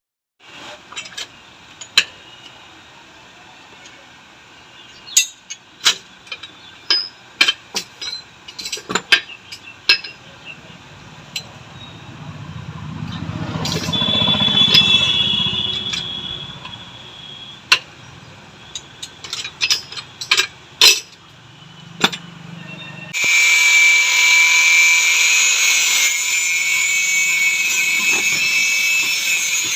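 Hand tools clinking and knocking on metal parts of a motorcycle rear shock absorber, with a low hum that swells and fades midway. A power tool then starts and runs steadily with a high whine for the last several seconds.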